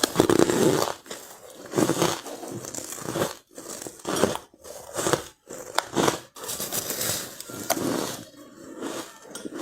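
Close-miked biting and crunching of soft powdery ice: a run of crisp crunches, about one a second, with chewing between them.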